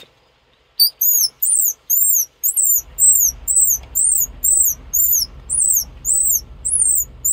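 Homemade mouth-blown squirrel call: a quick, even series of high whistled chirps, each rising and falling in pitch, about three a second, starting about a second in.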